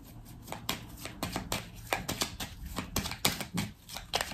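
Tarot cards being shuffled and handled: an irregular run of sharp card clicks and flicks, several a second.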